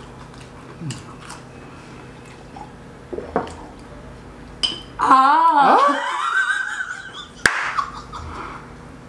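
A loud, wavering burst of laughter lasting about two seconds, starting about halfway through, after a few faint clicks at the table. A single sharp click follows near the end.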